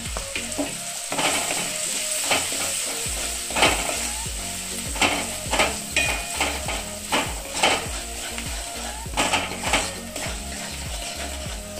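A wooden spatula scrapes and stirs peas, capsicum and ground spices around a metal karahi while they fry and sizzle in hot oil. The scrapes are irregular, about once a second, over a steady sizzle.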